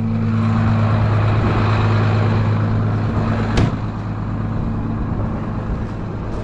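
Farm tractor engine running steadily while pulling a row-crop planter through the field, heard from inside the cab as a constant low hum. A single sharp click comes about three and a half seconds in.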